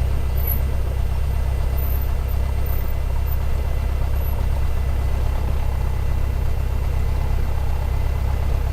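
Cessna 172's four-cylinder piston engine idling steadily before taxi, a constant low drone heard from inside the cockpit.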